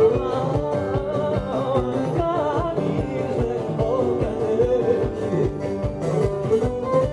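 Live band playing Cretan music: a bowed Cretan lyra melody over lute, guitar, bass guitar and drum kit keeping a steady beat.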